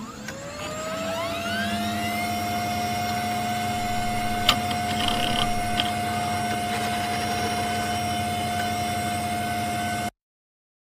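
A machine spinning up: its whine rises in pitch over about two seconds, then holds steady over a low hum. There is a single sharp click midway, and the sound cuts off abruptly near the end.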